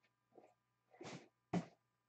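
Handling noises on a table: a brief rustle about a second in, then a sharp thump just after, as of something set or bumped down.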